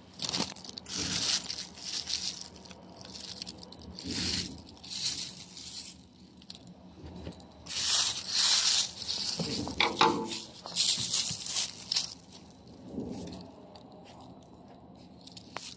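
Thin plastic sheeting crinkling and rustling in irregular bursts as a hand grips and shifts the bag-wrapped water jug.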